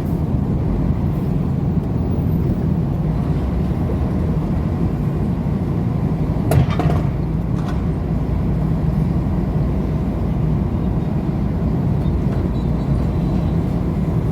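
Truck's diesel engine and tyre noise running steadily while driving on a highway, with a brief sharp clatter about halfway through.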